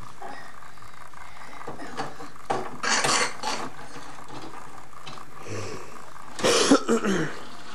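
Two short bouts of coughing, each a few quick coughs, about three and a half seconds apart, over a steady background hum.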